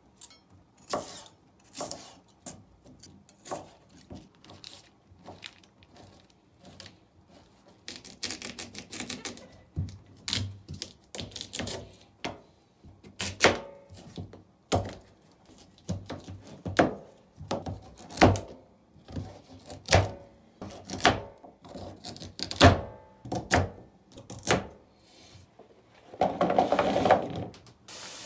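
Kitchen work sounds: irregular knocks and clicks of utensils and dishes, with a quick run of clicks about eight seconds in and a short rushing noise near the end.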